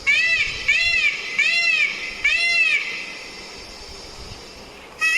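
Peacock giving four short, wailing calls in quick succession, each rising then falling in pitch, then a pause of about two seconds before it calls again at the very end.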